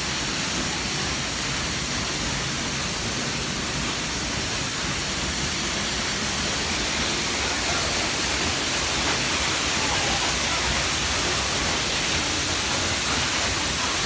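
A tall waterfall crashing down into its pool, heard as a steady, even rush of falling water.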